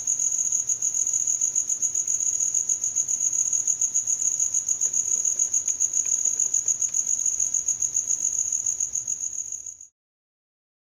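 Cricket chirping: a high-pitched, rapidly pulsing trill that runs on steadily, then fades out and stops near the end.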